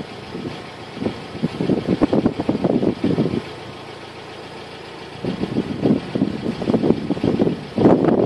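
Wind buffeting the camera microphone in irregular gusts, with a calmer spell near the middle.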